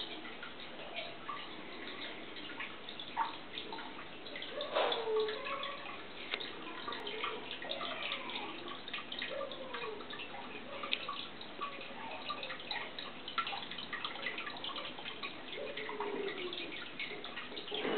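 Aquarium water bubbling and trickling: a steady patter of drips and small bubble plops at the surface, with occasional short gurgles, the loudest about five seconds in.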